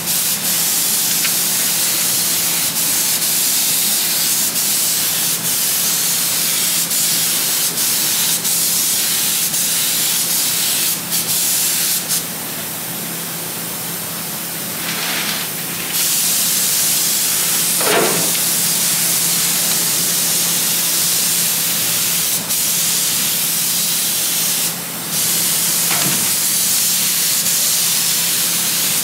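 Paint being sprayed: a steady, loud hiss that softens for about four seconds around twelve seconds in and dips briefly near twenty-five seconds.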